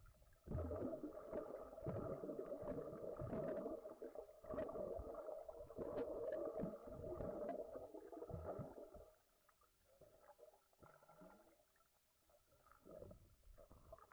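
Muffled underwater sound heard through a camera's waterproof housing: an irregular rumble with scattered knocks as water moves against the housing, dying down to a faint murmur about nine seconds in.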